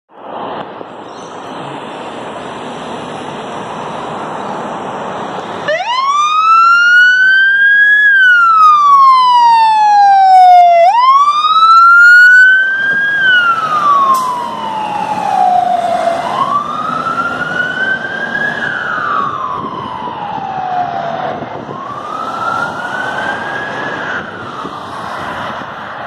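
Fire truck's electronic siren sounding a slow wail, each rise and fall taking about five seconds. It starts about six seconds in and fades as the truck drives away.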